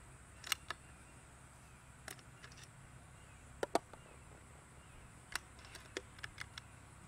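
Short, sharp clicks and clacks from handling and loading a .25 FX Wildcat MK2 Compact PCP air rifle: cycling the side lever and handling pellets. The loudest is a close pair of clacks about halfway through, followed by a quick run of lighter clicks near the end.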